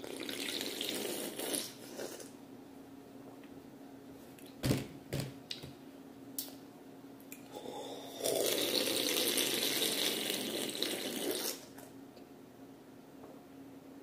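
Drinking from a can: a short sip at the start, a couple of sharp clicks about five seconds in, then a louder run of slurping and gulping for about three seconds from around eight seconds in.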